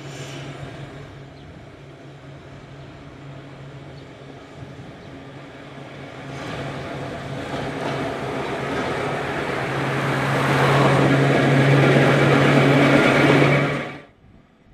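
Manx Electric Railway No. 34's diesel engine running steadily with a low hum as the locomotive approaches hauling a tramcar. The engine and running noise grow louder as it nears, then cut off suddenly near the end.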